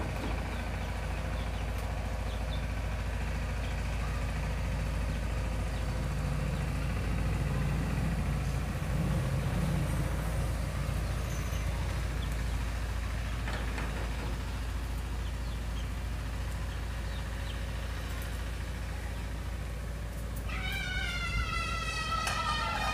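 Steady low background rumble throughout. Near the end a cat gives one long, drawn-out meow that drops in pitch as it ends.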